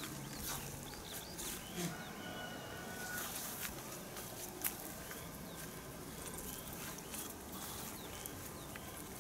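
Small birds chirping and calling over a quiet outdoor background, with a few faint clicks.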